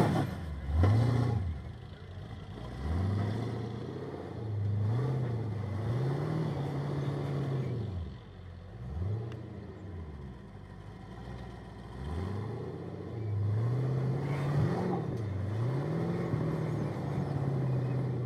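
Off-road rock buggy's engine revving up and falling back again and again, in bursts of a second or two, as it claws over tire and concrete-pipe obstacles under load.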